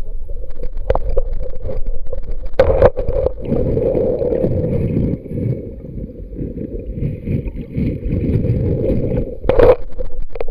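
Muffled underwater sound picked up by a submerged waterproof camera: low churning water noise rubbing over the camera body, with a couple of sharp thumps, one about three seconds in and one near the end.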